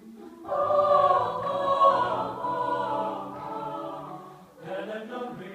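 Mixed chamber choir singing a cappella: a loud held chord enters about half a second in and slowly fades, and a new phrase begins near the end.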